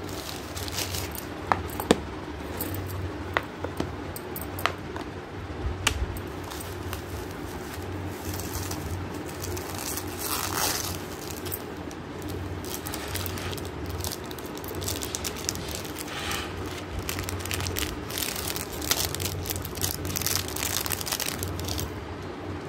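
Plastic packaging and bubble wrap crinkling and rustling as a jewelry parcel is unwrapped by hand, with a few sharp clicks in the first six seconds, over a low steady hum.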